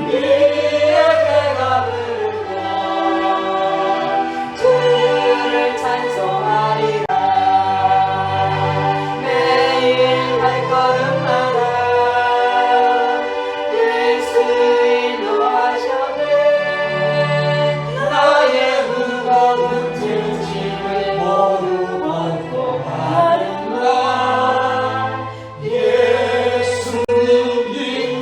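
Gospel hymn sung by a choir over sustained accompaniment with held bass notes.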